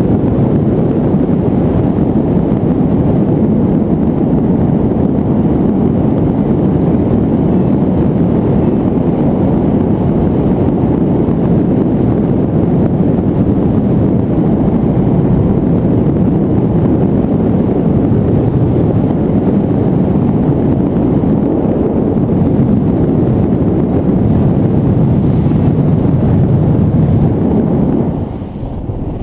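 Wind rushing over the camera microphone of a paraglider in flight, a steady low rush with no engine note; it drops noticeably near the end.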